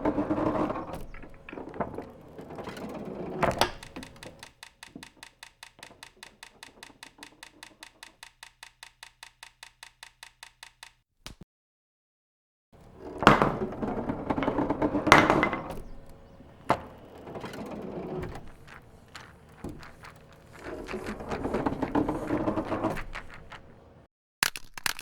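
Foley sound effects: clattering and sharp knocks, then a run of even ticks, about five a second, for several seconds. After a brief silence comes louder clatter with scattered knocks and impacts.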